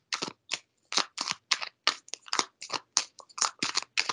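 Tarot cards being shuffled by hand: a quick, uneven run of short, crisp slaps, several a second.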